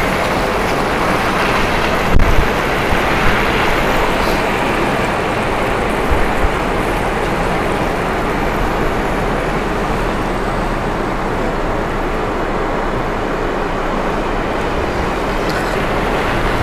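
Steady rushing wind noise on the microphone while riding an electric kick scooter over snow, with two brief knocks about two and six seconds in.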